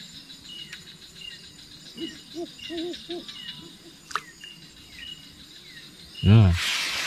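Night insects chirping in a steady rhythm of short high notes, with a quick series of about five low hooting calls a little past two seconds in. Near the end a loud sudden sound breaks in, followed by a rustling noise.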